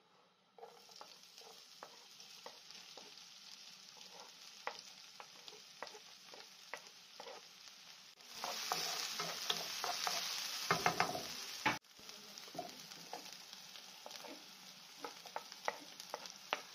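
Diced onion frying in hot olive oil in a nonstick pan, sizzling with many small crackles and pops. The sizzle grows louder for about three seconds just past the middle.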